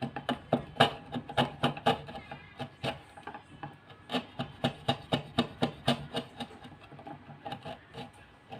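Hand tool working wood: a quick, even run of short scraping knocks, about four a second, thinning out near the end.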